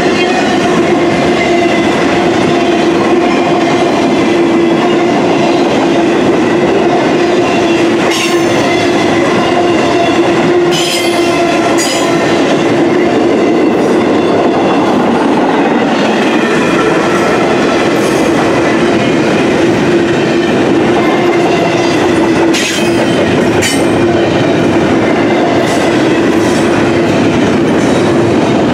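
Double-stack intermodal freight cars rolling past at steady speed: a continuous loud rumble of steel wheels on rail with a steady hum running through it, and a few sharp clanks along the way.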